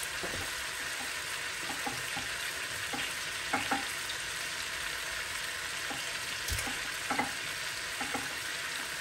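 Seasoned pork tenderloin and onion rings frying in olive oil in a skillet: a steady sizzle with a few small pops and clicks.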